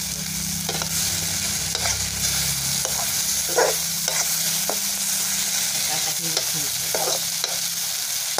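Chopped okra frying and sizzling steadily in a metal kadhai, while a metal slotted spoon stirs it and scrapes against the pan in short, irregular strokes.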